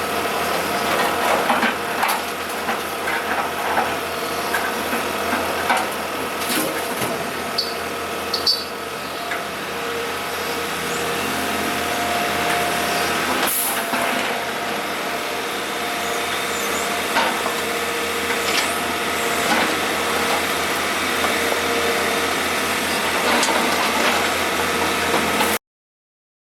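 Diesel engines of a wheeled excavator and dump truck running steadily on a road-works site, with scattered clanks and knocks as asphalt rubble is handled; the sound cuts off abruptly near the end.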